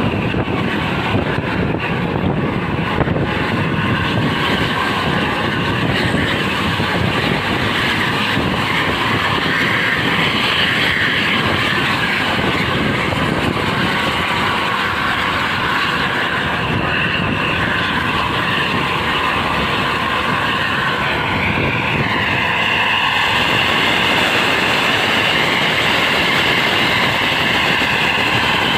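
Steady engine and road noise from moving vehicles on the road, growing a little louder about three-quarters of the way in.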